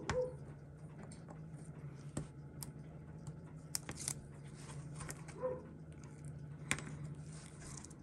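Faint, irregular small clicks and taps of steel tweezers against a Seiko 6139 chronograph movement and its case as the winding stem is released, over a steady low hum.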